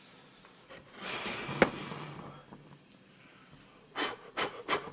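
A soft rustling noise from about a second in, with one sharp click, the loudest sound, at about a second and a half. Near the end comes a quick run of short slurps as instant ramen noodles are sucked up from chopsticks.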